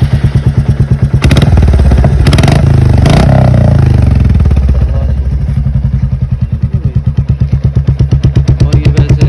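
Royal Enfield Bullet single-cylinder engine running through a newly fitted aftermarket silencer, with an even beat of exhaust pulses. It is revved from about one to four seconds in, then drops back to idle.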